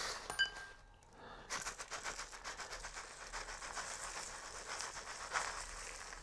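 Dry muesli trickling from a bag over a hand into a plastic bowl: a faint, even patter of many small grains and flakes, starting about a second and a half in after a short click.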